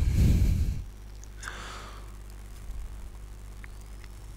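A short, breath-like rush of air close to the microphone, then a fainter one about a second and a half in, over a steady low electrical hum.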